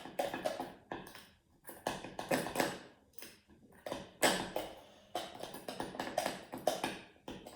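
A spoon stirring a runny slime mixture in a bowl, knocking and scraping against the bowl in an uneven run of quick clinks, two or three a second.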